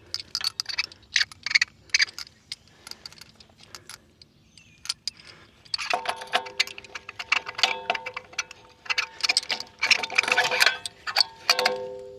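Irregular metal clicking and clinking as a PTO quick coupler is handled and pushed onto a tractor's splined PTO shaft. About halfway through, a steady ringing tone sounds under the clicks.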